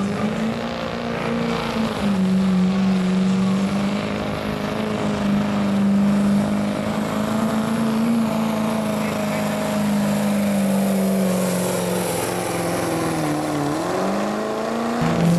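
Diesel pickup truck engine running hard at high revs under full load while pulling a sled, its pitch holding steady for most of the pull. Near the end the pitch sags as the engine bogs down, then rises again.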